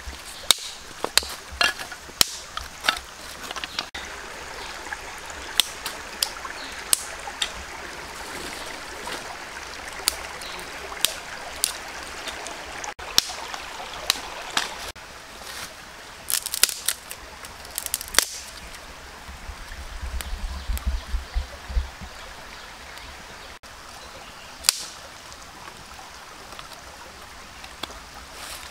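Irregular sharp clicks and snaps of hard objects being handled, over the steady wash of a stream, with a short low rumble about two-thirds of the way in.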